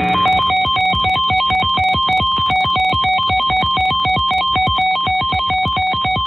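Electronic ringtone-like melody of quick alternating beeps over a fast, even low beat.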